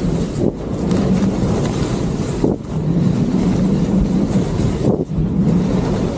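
Heavy wind rushing over the microphone at speed, with skis hissing and scraping through snow. The noise dips briefly three times.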